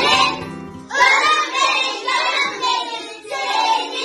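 A group of children singing together in chorus. A low accompaniment beneath the voices stops abruptly about a second in, and the singing continues unaccompanied.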